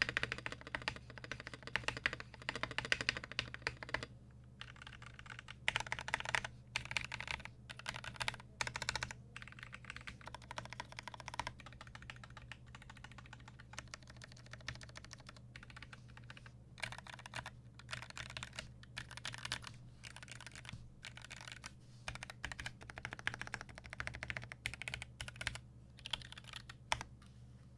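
Typing on a Melody96 mechanical keyboard with lubed and filmed Gateron Yellow linear switches, an aluminum plate and GMK keycaps. Fast, continuous keystrokes for about four seconds, then bursts of typing broken by short pauses, over a faint steady low hum.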